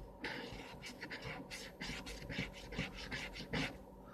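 Scratching the coating off an instant lottery scratch-off ticket: a quick, irregular series of short scraping strokes.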